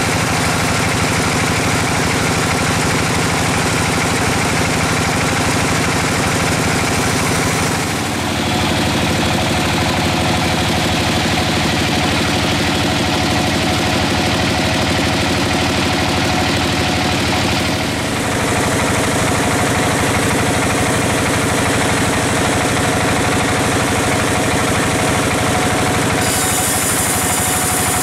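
Band sawmill running steadily: a continuous machine hum with a broad hiss over it. The sound changes abruptly about eight seconds in, again about ten seconds later, and once more near the end, when a higher hiss comes in.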